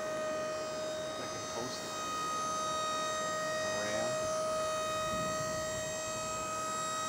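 Dump-box hoist's hydraulic pump motor running with a steady, high whine while it raises the dump bed of a 1991 Ford F350 dump truck.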